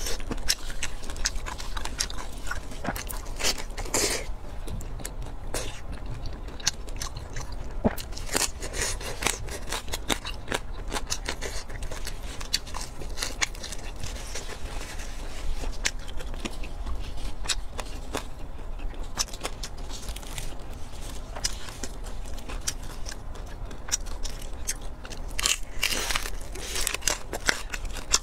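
Close-miked eating: biting and chewing fatty braised pork with a crisp crumb coating, many sharp crackling crunches throughout, with louder crunches about 4 and 8 seconds in and again near the end.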